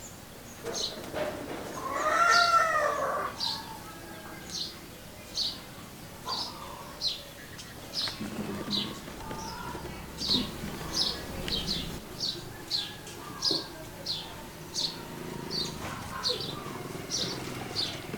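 A cat gives one long meow about two seconds in, rising and then falling in pitch. Small birds chirp in short, sharp, high notes, repeating irregularly throughout.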